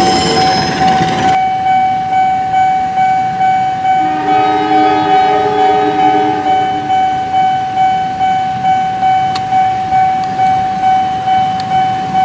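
Level-crossing warning bell ringing in a steady repeating ding, about one and a half strikes a second, after a passing train's wheel noise stops abruptly about a second in. A low two-tone horn sounds for a couple of seconds near the middle.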